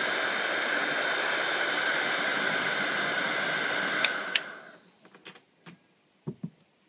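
Electric hair dryer blowing steadily with a whine in its rush of air, switched off with two sharp clicks about four seconds in and quickly winding down, followed by a few light knocks.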